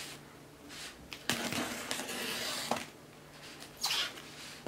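Scissor blade slitting the packing tape along a cardboard box's seam: a scraping rasp lasting over a second, with a short scrape before it and another near the end.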